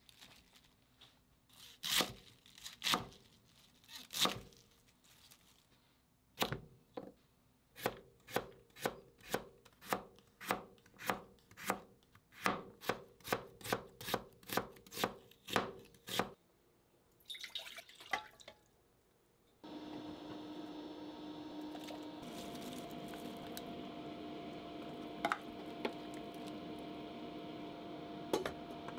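Kitchen knife chopping vegetables on a cutting board: a few separate cuts, then a quick run of about two cuts a second, then a brief scrape. About twenty seconds in, a steady hiss with a low hum begins: a pot of water heating on the stove, with a couple of faint clicks.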